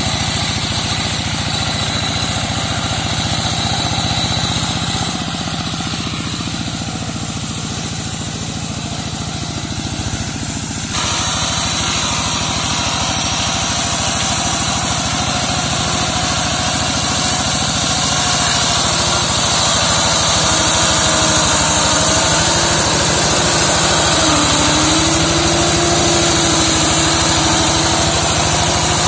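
Single-cylinder diesel engine of a walk-behind hand tractor brush mower running steadily while it cuts through undergrowth. The sound changes abruptly about eleven seconds in, and the engine pitch wavers slightly and grows a little louder in the second half.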